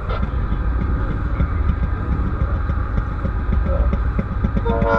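Small engines of railway motorcars (track speeders) idling together, a low steady rumble with a rapid, uneven putter. A brief pitched tone sounds near the end.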